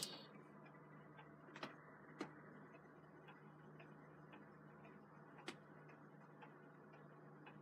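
Edison cylinder phonograph running on after the record has finished. The cylinder's hiss cuts off with a click at the start, leaving faint mechanical ticking about three times a second, a few louder clicks and a low steady hum.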